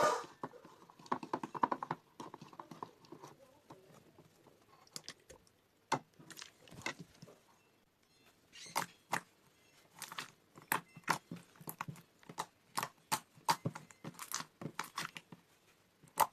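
Slime being handled, squished and poked, making irregular sticky clicks and pops. These are sparse at first and come in quicker runs from about halfway through.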